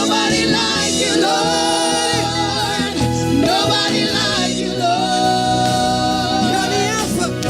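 Gospel worship music: a singer or worship team holding long sung notes over a live band.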